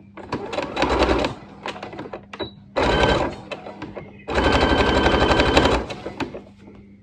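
Electric sewing machine stitching in three short runs, the longest about a second and a half near the middle, each a fast, even chatter of the needle, with small handling clicks between the runs.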